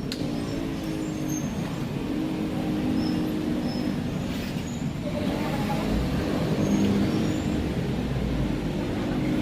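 Rusi RFI 175 motorcycle engine running, its speed rising and falling a little, with a sharp click right at the start.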